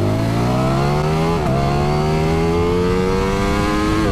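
Italian V4 sport motorcycle engines launching flat out from a standing start in a drag race, the engine note climbing steeply. The rising pitch dips briefly at a quick upshift about a second and a half in, climbs more slowly, then dips again at another shift near the end.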